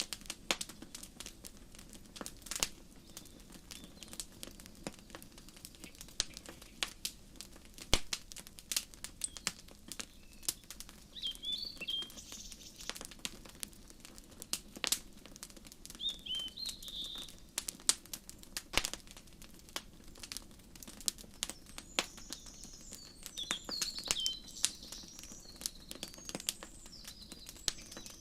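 Wood fire crackling in a fireplace, with frequent sharp pops over a low steady rumble, the loudest pops about eight and nineteen seconds in. Small birds chirp in short high calls, in scattered bursts from about eleven seconds in and most often in the last third.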